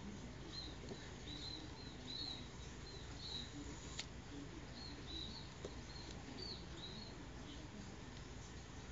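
About a dozen short, high chirps from a small animal, coming in loose runs, with one sharp click about four seconds in.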